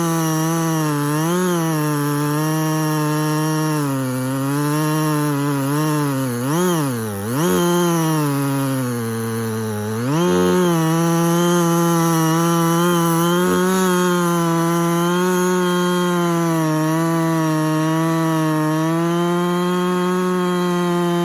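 Husqvarna 55 single-cylinder two-stroke chainsaw running at high revs under load. Its pitch sags and recovers several times, dropping deepest from about seven to ten seconds in before climbing back, then holds steady and high through the rest.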